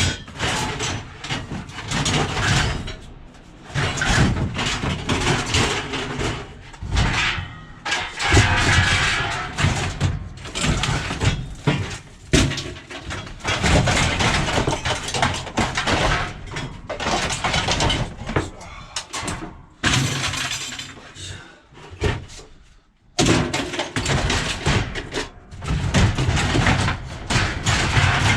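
Pieces of scrap metal clanking and clattering, irregular and repeated, as they are handled and tossed onto sorted piles.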